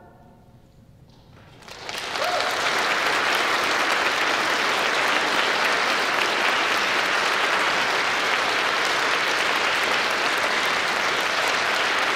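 Audience applauding, swelling in about two seconds in after a brief hush as the choir's final chord dies away, then going on steadily.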